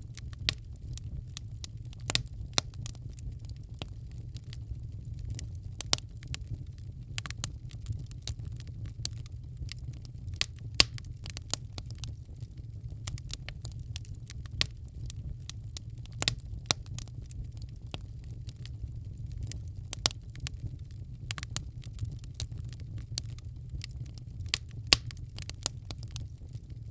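Wood fire burning in a fireplace: a steady low rumble of the flames with irregular crackles and sharp pops of the burning logs, a few louder snaps among them.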